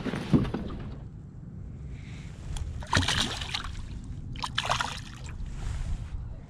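Water splashing as a released northern pike kicks away at the surface beside the boat, in two bursts about three seconds in and a second and a half later, over a steady low wind rumble on the microphone.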